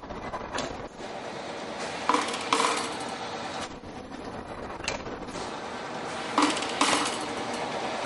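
Non-woven fruit bag making machine running with a steady mechanical clatter, with a pair of sharp metallic clinks about every four seconds as it cycles.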